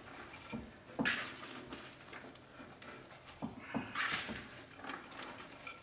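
Handling noises as shredded cabbage is scooped from a colander into a stoneware crock: a few short knocks, the loudest about a second in and a cluster around three and a half to four seconds in, with brief rustling of the cabbage.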